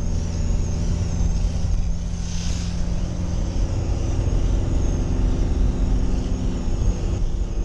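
Fiat Ducato camper van being driven fast, heard from inside the cab: a steady engine drone with road and wind noise. The engine note shifts a little higher about halfway through, and a short hiss comes and goes about two and a half seconds in.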